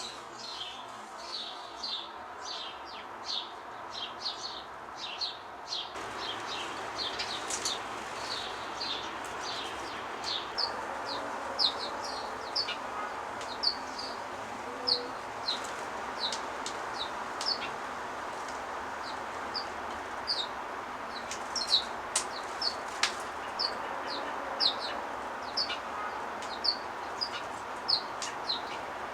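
Sparrows chirping: many short, sharp, falling chirps, several a second, over a steady background hiss.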